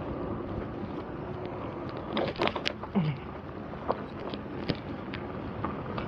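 Electric unicycle being ridden: steady tyre and road noise with wind on the microphone, and a cluster of knocks and rattles about two to three seconds in.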